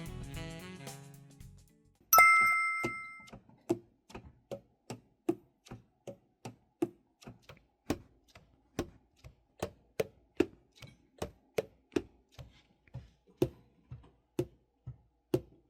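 Borgani Macerata tenor saxophone's keys tapped closed one after another, each pad landing with a short soft pop whose pitch changes from key to key, about two to three a second. Saxophone playing fades out at the start, and a single bright ding comes about two seconds in.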